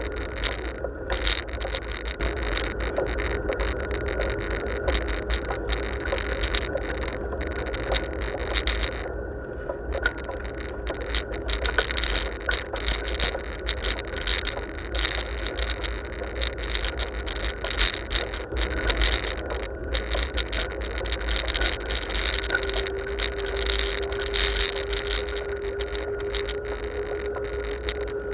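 Ride noise from a bicycle-mounted camera: wind rumbling on the microphone and the rattle of the bike and camera over the road. A steady whine grows stronger near the end.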